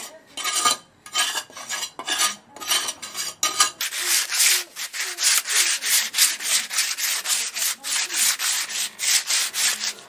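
Rapid back-and-forth rasping strokes as a sycamore wood rake handle is smoothed by hand. The strokes are uneven at first, then about four seconds in they turn louder and steady, about three a second.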